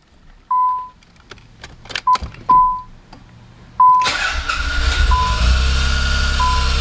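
Short warning-chime beeps and a few clicks, then the Nissan 300ZX's twin-turbo VG30DETT V6 starts about four seconds in and runs steadily, with the beeps going on. The engine is making a horrible noise whose cause is unknown: compression and timing check out and the VTC solenoids work.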